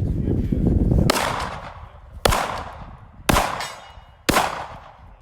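Four pistol shots fired at a steady pace, about one a second, each followed by a short ringing decay.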